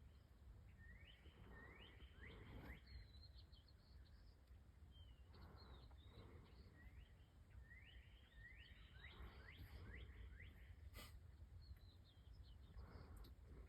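Faint songbird calls: short rising chirps repeated in quick runs, about a second in and again around seven to ten seconds in, over a low rumble of wind, with a single sharp click near the end.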